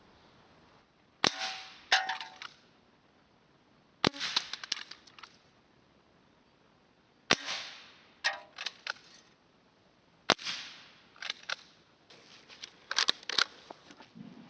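CO2 revolver firing four shots at tin cans, about three seconds apart, each sharp crack followed by the rattling clatter of the can being hit and tumbling. A longer run of clatter comes near the end.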